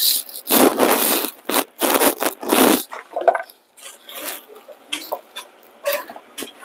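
Scraping and rustling kitchen handling noises in several bursts, the loudest two in the first three seconds, then lighter scattered scrapes.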